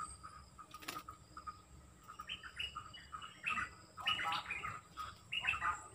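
Red-whiskered bulbuls calling: clusters of short, bright chirping notes from about two seconds in, after a single sharp click about a second in.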